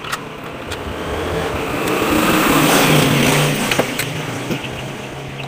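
A motor vehicle driving past, its engine and tyre noise swelling to a peak about three seconds in and then fading. A few light clicks are heard along with it.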